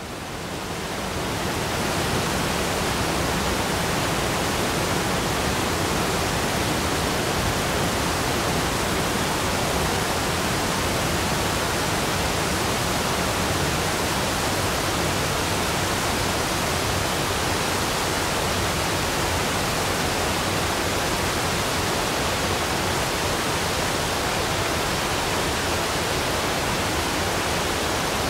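Steady rushing of a large waterfall, fading in over the first two seconds and then holding level.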